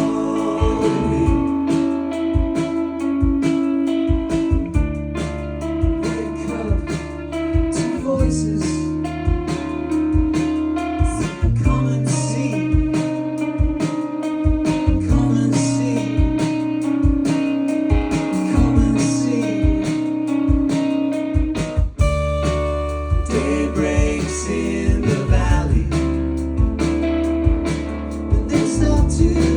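Live band music: electric guitars and electric bass over a steady drum beat.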